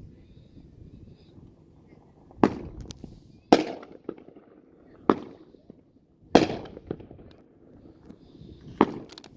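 A 500-gram Alamo Fireworks cake firing its shells: five sharp bangs spaced one to two and a half seconds apart, each trailing off briefly.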